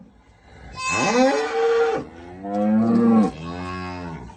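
Hungry farm animals calling: a long bleat about a second in, then a lower, drawn-out moo that trails off near the end.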